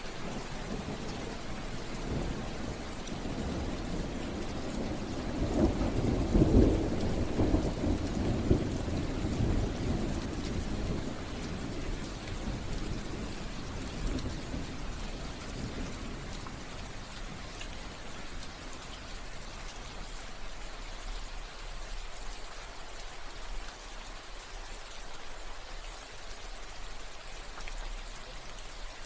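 Steady rain with a roll of thunder that builds a couple of seconds in, is loudest about six to seven seconds in, and fades away by about twelve seconds, leaving the rain alone.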